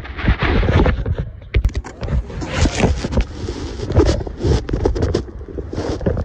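BMX bike rolling over concrete, with wind buffeting the microphone in uneven gusts and scattered knocks and scrapes from the bike and tyres.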